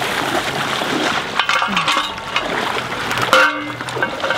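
Shallow river water sloshing and splashing around a wader's feet and the anchors at the shore, with a few light knocks. A brief pitched tone sounds about three seconds in.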